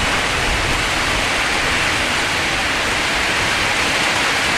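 Heavy rain pouring down in a strong wind, a steady dense hiss.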